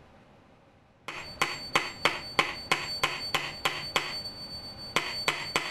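Small hammer tapping a steel axle-driver rod, about a dozen light metallic taps at roughly three a second with a short pause before the last three, each with a high ringing tone. It is driving a wheel axle into the wooden body of a Pinewood Derby car.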